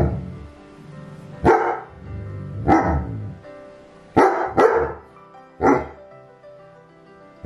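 A dog barking about six times at uneven intervals, two of them in quick succession about four and a half seconds in, over background music.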